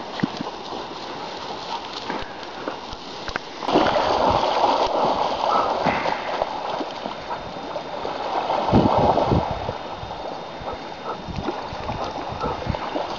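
Dogs splashing through a shallow, fast-flowing river over the rush of the current. The splashing gets louder about four seconds in and eases after about nine seconds.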